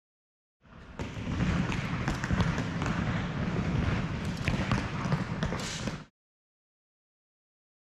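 Echoing noise of a large indoor hall, full of scattered knocks and clatter with faint voices, starting about half a second in and cutting off suddenly about six seconds in.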